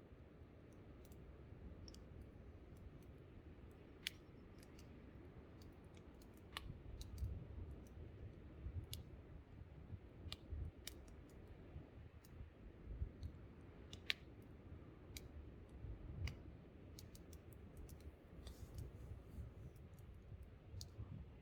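Campfire crackling, with irregular sharp pops, over a gusting low rumble of wind on the microphone that picks up after a few seconds.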